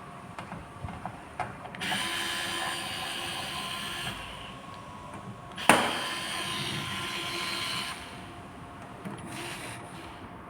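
Power screwdriver with a Phillips bit whirring in two runs of about two and a half seconds each, backing out panel screws, with a sharp click as the second run starts.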